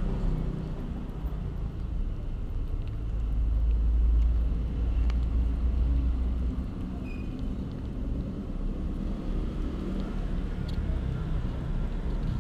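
A low, steady rumble that swells a few seconds in, with a few faint clicks.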